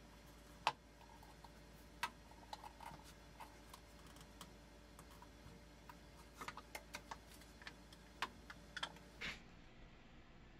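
Scattered light clicks and knocks of the wooden table bowl, a zelkova slab on turned wooden feet, being handled and shifted on a workbench. One sharper knock comes about a second in, and a quick run of taps falls past the halfway point.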